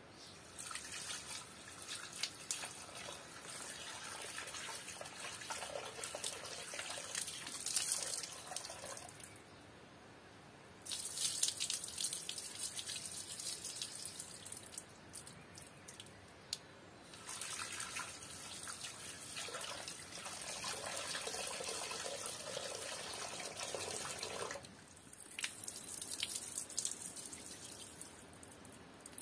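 Water running from an outdoor tap into a bowl as raw lamb pieces are rinsed and rubbed by hand, with splashing. The flow runs in three stretches with short pauses between.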